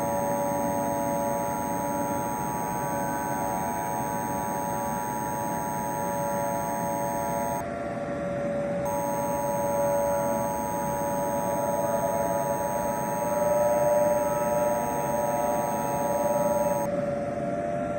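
Emergency Alert System two-tone attention signal: a steady, shrill two-note alert tone. It sounds for about eight seconds, breaks off for about a second, then sounds again for another eight seconds. A constant hum and hiss runs under it.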